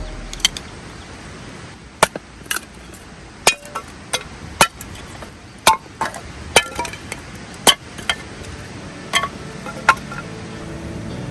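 A series of irregular sharp knocks and clinks of hard objects, about a dozen, some with a short metallic-sounding ring.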